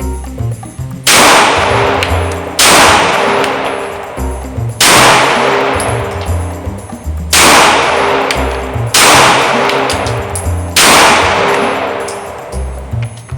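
Six single shots from a Springfield Armory Hellcat Pro 9mm pistol, fired at an unhurried, uneven pace about one and a half to two and a half seconds apart, each with a long ringing echo.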